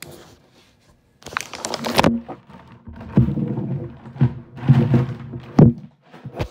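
Paper wrapping being torn off a cardboard shipping box and crumpled, in irregular rustling bursts with handling knocks and a sharp thump near the end.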